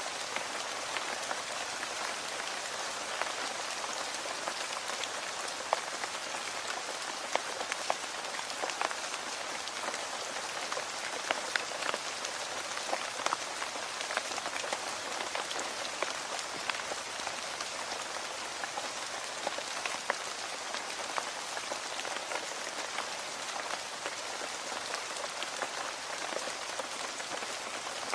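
Steady rain falling on a surface: an even hiss with many individual drops ticking sharply through it.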